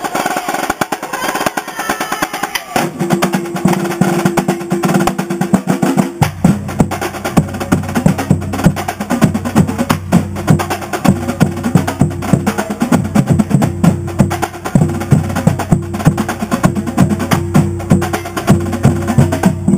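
Marching drumline playing a fast, dense cadence of snare and tenor drum strokes and rolls with rim clicks. About three seconds in, a steady pitched tone joins, and from about six seconds low sustained bass notes run under the drumming.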